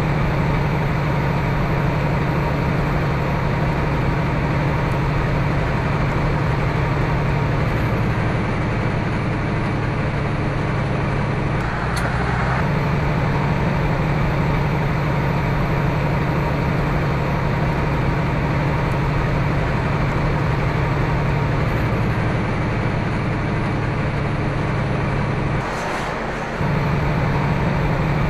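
Steady engine and road drone from inside a semi-truck's cab at highway speed, with a strong deep hum. The sound briefly shifts about halfway through and again near the end.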